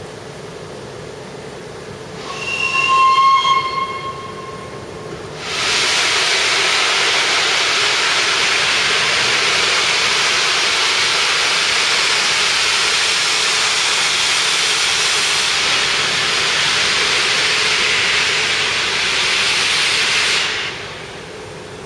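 Peppercorn A1 steam locomotive 60163 Tornado sounding its whistle for about two seconds as it prepares to depart. A few seconds later a loud, steady hiss of steam starts; it runs without any beat for about fifteen seconds and then cuts off.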